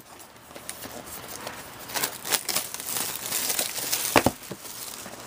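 Plastic shrink wrap crinkling and tearing as it is stripped off a cardboard box of hockey cards, with the box being handled, and a sharp click near the end.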